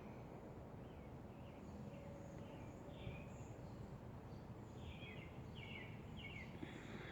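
Faint songbird chirps over a steady low outdoor background hum, with a quick run of chirps about five to six and a half seconds in.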